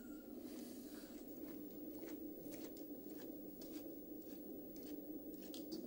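Faint crunching footsteps on a gritty dirt path, in irregular crisp steps about two or three a second, over a steady low hum.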